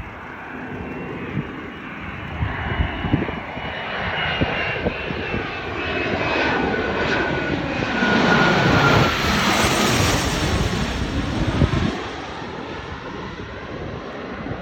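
Bombardier Challenger 300 business jet flying low overhead on its landing approach. The twin turbofans build up, are loudest about eight to ten seconds in, and carry a whine that falls in pitch as the jet passes. The sound then drops off after about twelve seconds.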